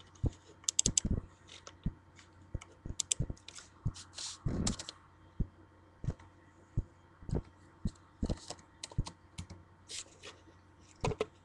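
Irregular light clicks and taps of something being handled close to the microphone, with a louder knock and rustle about four and a half seconds in.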